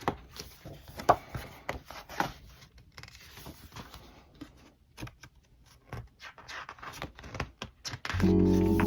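Pages of a large photobook being handled and turned: scattered soft paper rustles, rubs and taps, the sharpest about a second in. Background music starts near the end.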